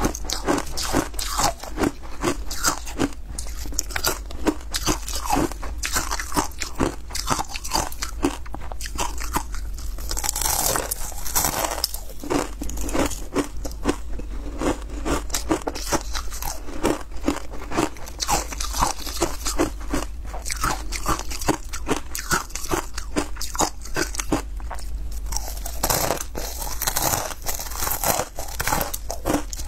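Ice cubes coated in matcha powder being bitten and chewed close to the microphone: a dense, uneven run of crisp crunches and cracks that keeps going.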